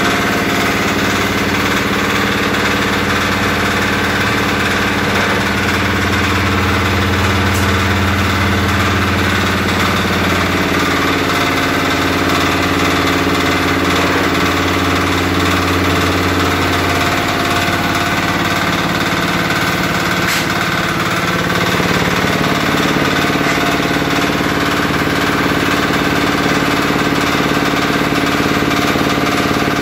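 Yanmar diesel engine running steadily while powering a mortar mixer, its pitch shifting slightly a few times.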